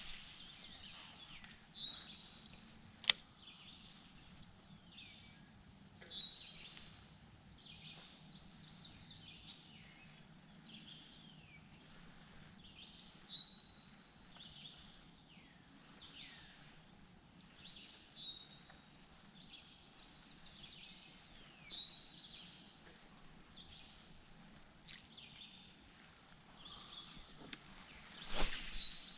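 Steady high-pitched chorus of insects singing, with repeated short falling notes every second or two. A single sharp click about three seconds in and a brief louder noise near the end.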